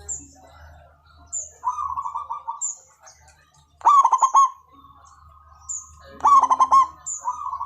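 Zebra dove (perkutut) cooing: four rapid, trilled coo phrases about every one and a half to two seconds, the two in the middle the loudest, over a faint low hum. Short high chirps repeat between them.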